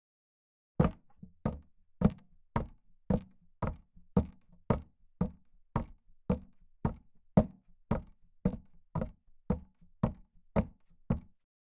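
A steady run of about twenty sharp knocks, roughly two a second, starting about a second in and stopping shortly before the end, against total digital silence.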